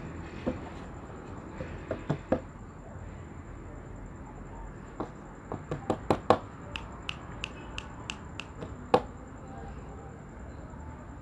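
Irregular sharp clicks and taps, single and in quick clusters, as a kitten scrambles and swats on a plastic desk-fan base and a hand pats at it, over a steady low background noise.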